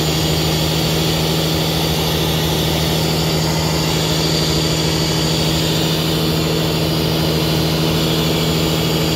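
A fishing boat's engine running steadily, an unbroken low hum with a constant drone.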